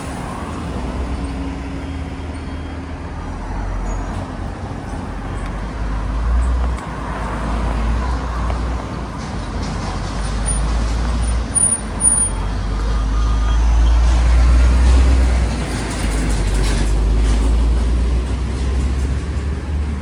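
Road traffic on a busy city street: passing cars, buses and trucks, with a deep rumble that swells and fades and is loudest in the second half.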